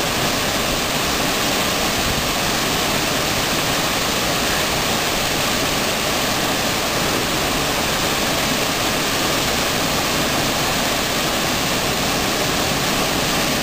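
Small creek waterfall pouring over a rock ledge into a pool, heard close up: a steady, even rush of falling water.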